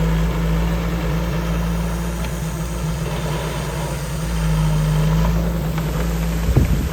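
Diesel engine of heavy earthmoving equipment running with a steady low drone that swells about four and a half seconds in. A few sharp clanks come near the end.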